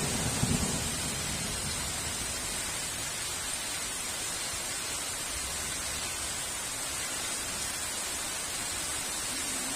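Heavy rain falling in a steady, even hiss, with the tail of a thunder rumble dying away in the first second.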